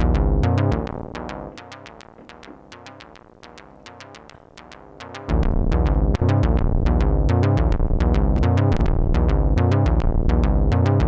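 ARP Avatar synthesizer playing a fast, repeating pulsed note pattern. From about a second in, the sound thins out and drops well down as its high-pass filter cutoff is turned up, cutting away the bass. About five seconds in it snaps back to full strength.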